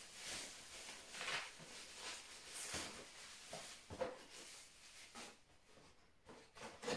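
Faint, scattered rustling and crinkling of a thin plastic bag as a boxed toy is pulled out of it and handled.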